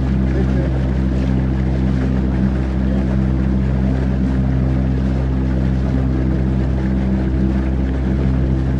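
Small fishing boat's motor running at a steady cruising speed, a constant even hum with the rush of water and air as the boat moves.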